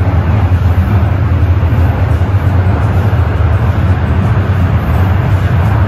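Toronto Rocket subway train running along the track, heard from inside the passenger car: a steady, loud low rumble with a rushing noise over it.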